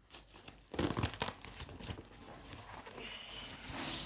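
Rustling and crinkling handling noise, starting about a second in: items being pulled out of a fabric camera carry bag, likely with plastic wrapping.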